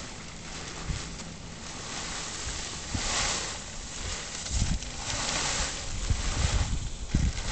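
Blue plastic tarp rustling and crinkling as it is dragged and draped over a horse, in swells, with wind buffeting the microphone.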